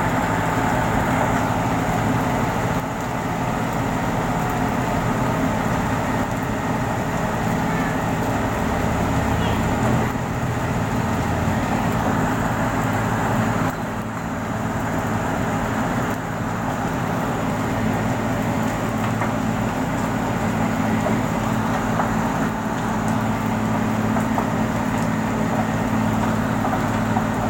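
A large engine running steadily, its low hum holding an even pitch throughout.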